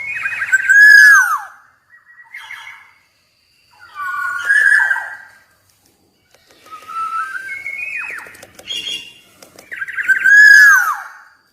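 Black-naped oriole singing: four loud, fluty whistled phrases, each ending in a downward slur, with short pauses between them.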